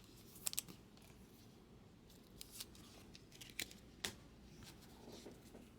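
Trading cards being handled and flipped through by hand: a handful of faint, sharp clicks and snaps of card stock.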